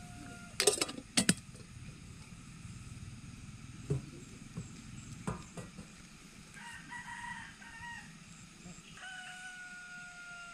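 A rooster crowing several times, its long held crows ending just after the start and again near the end, with another crow midway. Two loud sharp knocks come about a second in.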